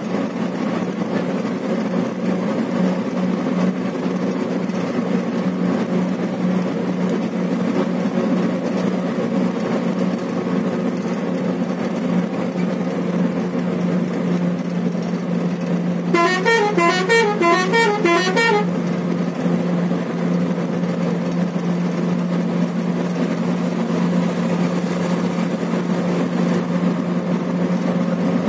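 Steady engine and road noise from inside a moving vehicle, with a low hum. Just past the middle, a warbling multi-tone vehicle horn sounds for about two seconds, stepping up and down in pitch.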